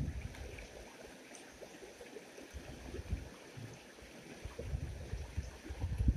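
Shallow mountain river flowing steadily over rocks, a continuous rushing of water, with irregular low rumbling bumps on the microphone, the strongest near the end.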